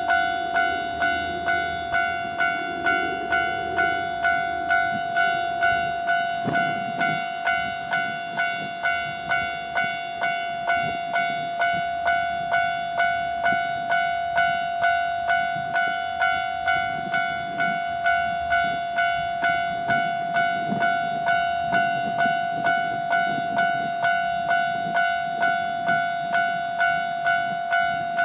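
Japanese railway level-crossing alarm ringing its steady repeated ding, about two strikes a second, warning that a train is coming.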